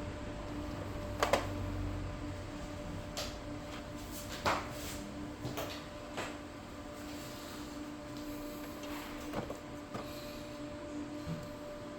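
Scattered light clicks and knocks of hands working on an inkjet printer's ink tubing and fittings, about six in all, the sharpest about a second and four and a half seconds in, over a steady low electrical hum.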